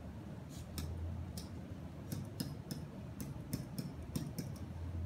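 Pen tapping and dragging on an interactive whiteboard as an equation is handwritten: irregular light clicks, several a second, over a low steady hum.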